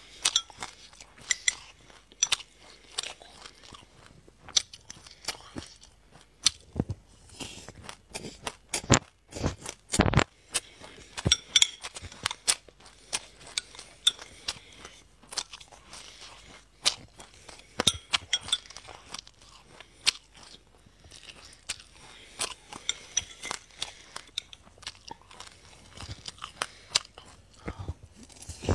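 Close-up crunching and chewing of a mouthful of sesame seeds: many small irregular crackles and sharp clicks. A ceramic spoon scrapes and knocks in a glass mug as seeds are scooped up.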